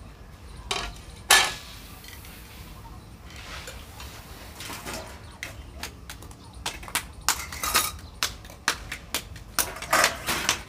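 Steel kitchen utensils clinking and knocking: a ladle in a pan, and steel bowls and tumblers set down on a steel plate. There is one sharp knock about a second in, and a quick run of clinks over the last few seconds.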